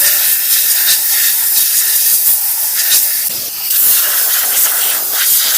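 Compressed air blasting in a long continuous hiss, blowing carbon brake dust out of a motorcycle brake drum; the dust has built up from the brake shoes and causes the brake noise.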